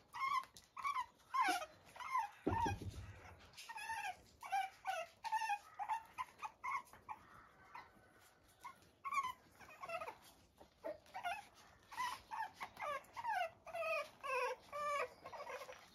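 Young puppies whimpering and whining in many short, high, falling cries, one after another, with a brief lull about halfway through. A dull low thump sounds about two and a half seconds in.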